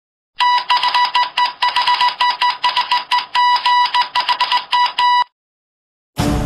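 Morse code telegraph beeping: a steady electronic tone keyed on and off in a run of short and long pulses for about five seconds. It stops, and after a brief gap theme music begins near the end.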